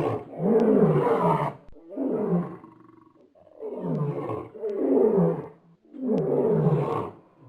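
Lion roaring: a series of about five deep, roughly second-long roars, each rising and falling in pitch, with a brief pause after the second.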